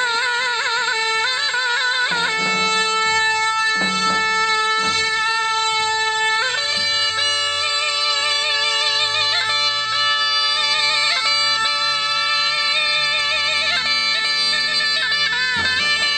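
Zurna playing a folk melody with quick trilled ornaments over a steady drone note held throughout; the melody moves to a new pitch about six and a half seconds in.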